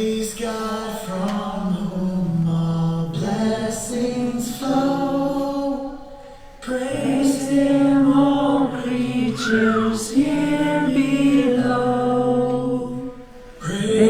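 Choir singing a hymn in harmony, in long held phrases, with a short break about six and a half seconds in and another near the end.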